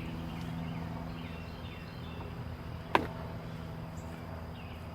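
Honeybees buzzing as a steady low hum around an opened, freshly expanded beehive, with one sharp knock about three seconds in.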